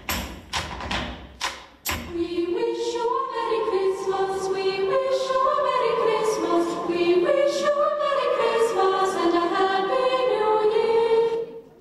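Music with a choir: a few sharp percussive beats for about the first two seconds, then many voices singing long, held notes that step up and down in pitch. The music drops away just before the end.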